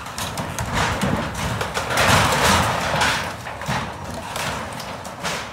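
Wooden frame house cracking, snapping and crunching as it breaks apart and slides into a flooded river, with many sharp cracks and a louder grinding stretch about two to three seconds in.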